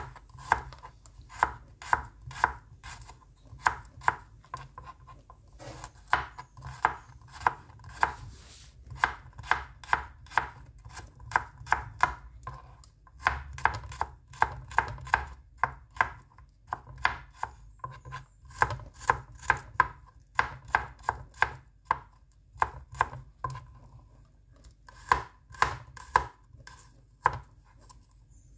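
Kitchen knife slicing garlic cloves on a cutting board: a run of sharp knocks of the blade striking the board, about two a second, in spells broken by short pauses.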